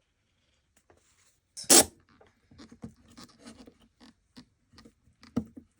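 Hands working glue into a broken wooden cutting board: one loud sharp sound a little under two seconds in, then a run of small light clicks and scratches, with another sharp sound near the end.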